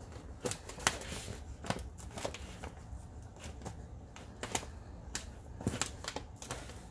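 Mylar bag crinkling and crackling in sharp, irregular snaps as it is handled and pressed shut with a hot hair straightener to heat-seal it.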